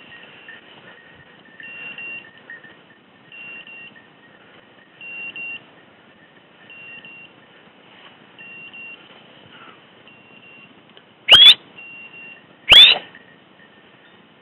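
A setter's hunting beeper collar beeping faintly at regular intervals, one short high beep about every second and a half. Near the end come three loud, short, rising whistles.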